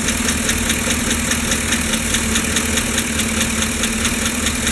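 GM 5.3-litre V8 idling with a fast, even ticking over the engine's hum: a lifter tick, which the owner blames on a failing lifter, with automatic transmission fluid just added to the oil to try to quiet it.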